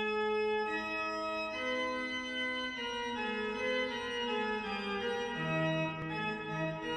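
Pipe organ playing slow sustained chords, the notes moving about once a second, with a lower bass note coming in about five and a half seconds in.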